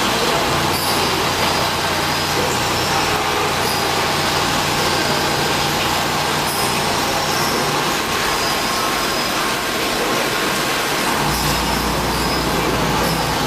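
Steady, loud mechanical running noise with a low hum that comes in about half a second in, drops away around seven seconds and returns near the end.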